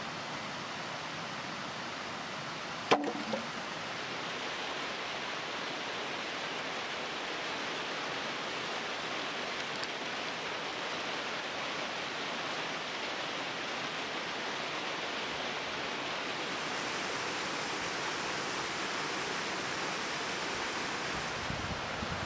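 Steady rushing noise, even and unbroken, with one sharp knock about three seconds in.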